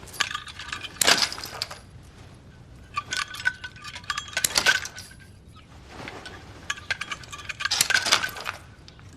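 Metal chain clinking and rattling in several separate bursts, links knocking together with a light ringing.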